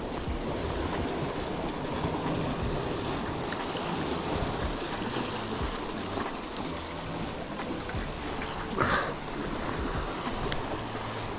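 Sea surf washing against rocks below, with wind on the microphone; a brief louder sound about nine seconds in.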